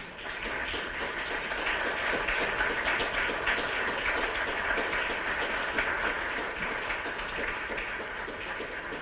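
A roomful of dinner guests applauding, many hands clapping at once, swelling over the first couple of seconds and easing off slightly near the end.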